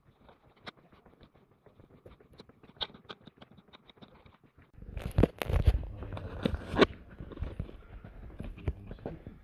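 Footsteps and small taps from someone walking on a cave trail. About five seconds in comes a louder burst of rustling and knocks lasting about two seconds, likely handling noise on the camera.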